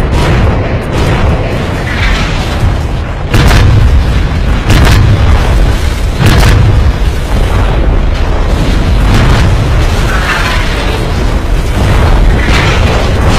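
Explosions booming over a continuous heavy low rumble, with three sharp blasts about three and a half, five and six and a half seconds in.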